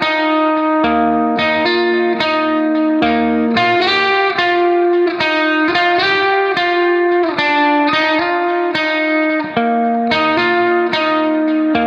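Background music: a steady, evenly paced tune of plucked guitar notes over a lower bass line.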